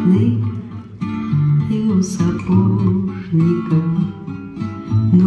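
Dance music with strummed acoustic guitar over a moving bass line, played through the stage loudspeakers.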